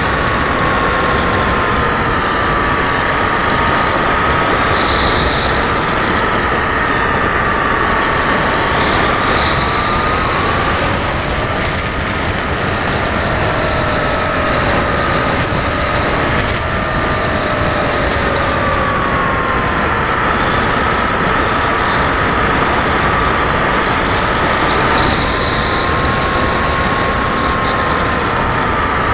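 Motor and propeller of an RC model aircraft whining, with wind rushing past the onboard camera. The pitch drifts up and down, and a higher whine rises and falls about ten to seventeen seconds in.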